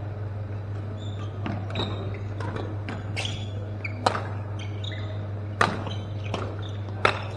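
Badminton rackets striking a shuttlecock in a rally, sharp hits about every second with the loudest three in the second half, among short squeaks of shoes on the court floor. A steady low hum and the echo of a large hall lie under it.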